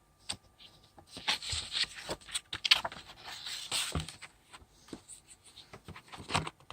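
Paper and cardboard rustling and scraping as items from a box set are handled, with scattered clicks and a couple of soft knocks.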